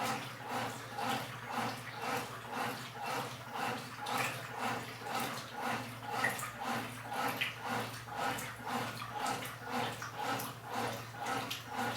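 Washing machine in its wash cycle, churning clothes in water with a rhythmic back-and-forth slosh about twice a second over a steady low hum.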